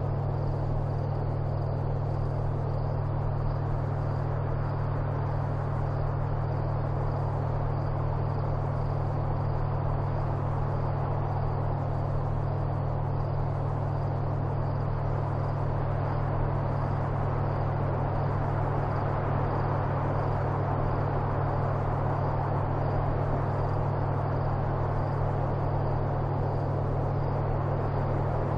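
A steady low hum under a constant, even hiss that does not change.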